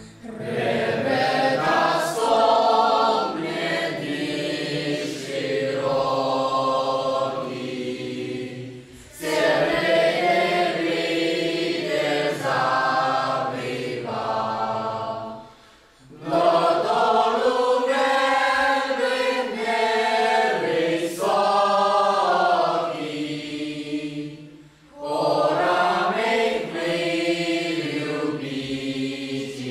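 A mixed choir of young men and women singing together, in four long phrases with short breaks about 9, 16 and 25 seconds in.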